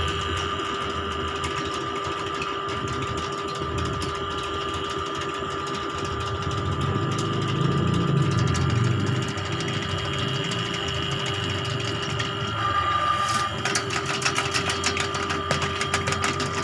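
Electric drain-cleaning machine running steadily with a constant motor whine, turning its cable through a clogged drain. Near the end, rapid clicking rattles join the running sound.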